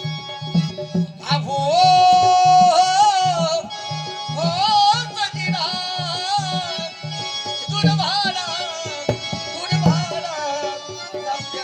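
Marathi folk music: a hand drum keeps a steady, quick beat under a lead melody of long held notes that waver in pitch, strongest from about a second in.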